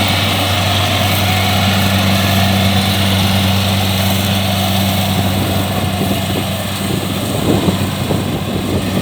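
Kubota DC-70 combine harvester's diesel engine running with a steady low hum. About seven seconds in the steady tone fades and the sound turns rougher and more uneven.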